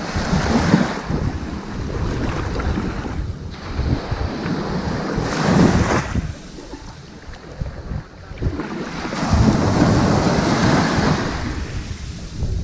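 Ocean waves breaking and washing up on a sandy beach: the surf swells in three rushes, about a second in, near the middle and again from about three quarters of the way through, with quieter lulls between them.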